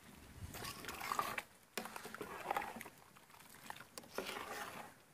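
Liquid sloshing in a pot of fish gravy with coconut milk, in three noisy stretches of about a second each, with a few light clicks.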